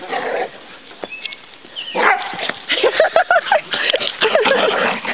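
Dogs yipping, barking and whining during rough play. There is a lull early on, then from about two seconds in comes a run of short, high calls that bend up and down in pitch.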